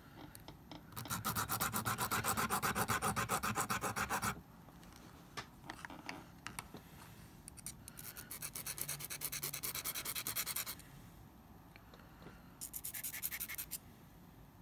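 Glass nail file rasping across the clipped end of a dentalium shell, evening it up. It goes in three runs of quick back-and-forth strokes: a long one about a second in, another past the middle, and a short one near the end.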